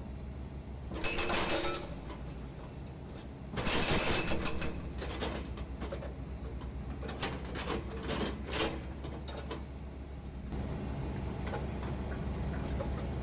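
Hydraulic excavator's diesel engine running steadily, with two brief loud hydraulic whines as the boom and raised breaker are moved, then scattered clicks and knocks; the breaker is not hammering. The engine note steps up slightly near the end.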